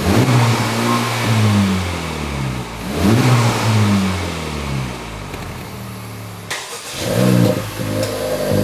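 Honda 2.0-litre turbocharged four-cylinder revved while stationary through its stock exhaust, bumped up to the soft rev limiter of about 3,500 rpm. There are two long revs that climb and fall back, a brief break just after six seconds, then another quick rev that settles to a steady raised note.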